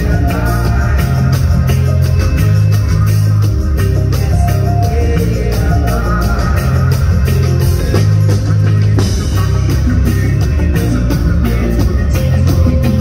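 Live reggae band playing: a man sings over electric guitar, a deep bass line in steady repeating notes, and a drum kit keeping an even beat.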